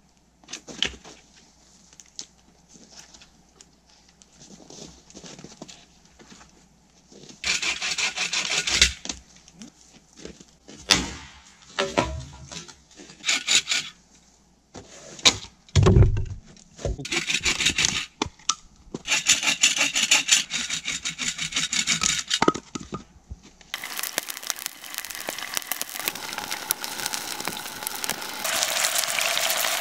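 Saw cutting wood by hand in several bouts of quick strokes, with sharp knocks and handling noise between them. Near the end a steady hiss takes over.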